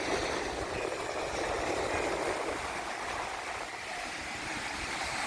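Steady wind blowing across the microphone over the continuous rush of surf on the beach.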